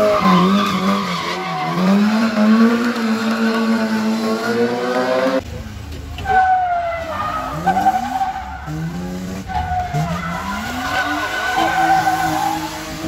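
Car engine revving up and down hard while the car drifts around cones, tyres skidding and squealing. About five seconds in the sound cuts to a second car, a BMW E36, doing the same, its engine note rising and falling in short pulls as it slides.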